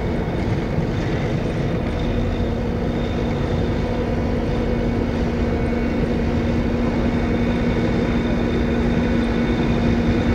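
Tractor engine running steadily, an even drone that holds one pitch throughout.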